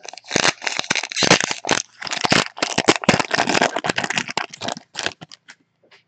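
Foil wrapper of a Panini Unparalleled football card pack crinkling as it is torn open, a dense crackle for about five seconds that thins to a few scattered crinkles near the end.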